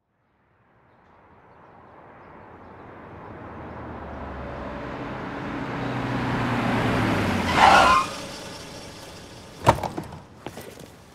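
A car drives up, its engine and road noise swelling steadily, and ends in a short sharp squeal as it pulls up; about two seconds later a loud thump, then a few lighter knocks.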